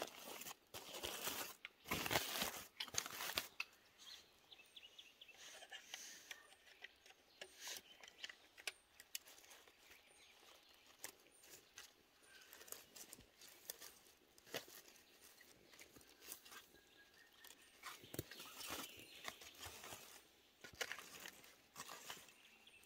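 Aluminium foil crinkling loudly as a foil parcel is opened during the first few seconds, then fainter scattered scrapes and clicks of a knife cutting food on the foil.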